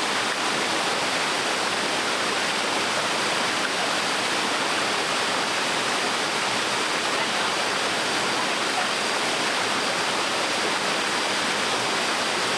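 Small waterfall pouring into a stream: a steady, even rush of falling water.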